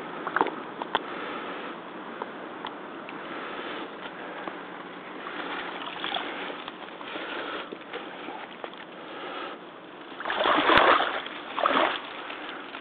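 Rubber hip boots stepping through shallow muddy pond water and dry grass, with small clicks throughout. About ten seconds in there is a louder surge of water noise, and a shorter one about a second later.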